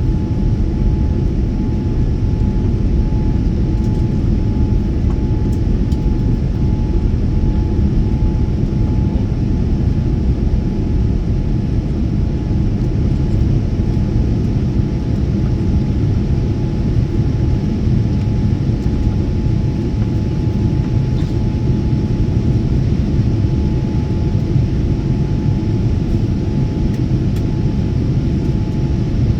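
Steady cabin noise inside a jet airliner: a low rumble of engines and airflow with a faint steady whine above it.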